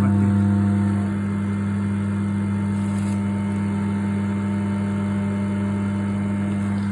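Siemens microwave oven running with a loud, steady low hum and buzz. The level eases slightly about a second in. The owner wonders whether the magnetron or the high-voltage capacitor is behind the noise.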